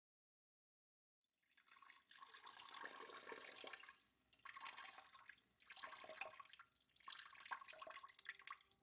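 Liquid trickling and splashing in four spurts, each about a second long with short breaks between, after a silent first second.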